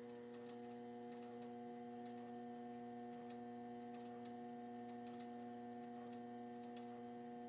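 Electric potter's wheel running at steady speed, a steady hum with a few faint scattered ticks.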